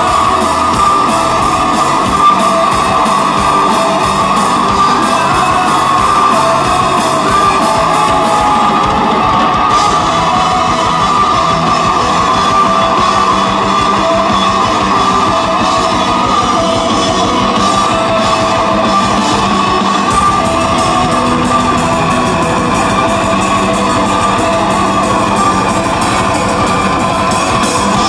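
Live black metal band playing loud, with distorted electric guitars and drums in a dense, unbroken wall of sound.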